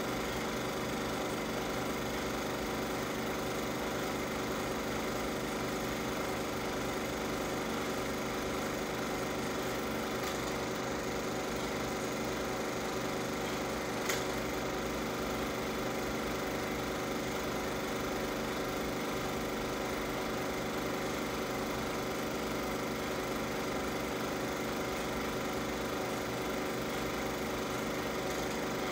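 Film projector running steadily, a continuous mechanical whir, with a single click about halfway through.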